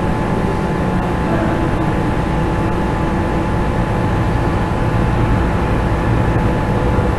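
Steady low rumbling background noise with a faint constant whine above it, unbroken throughout.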